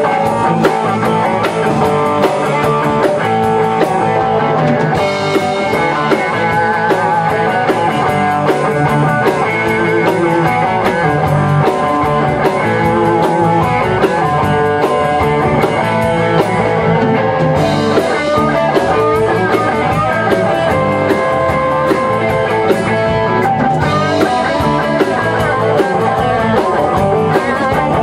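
Live rock band playing an instrumental passage with no vocals: electric guitars, electric bass and a drum kit, with a guitar playing held, wavering notes over the steady beat.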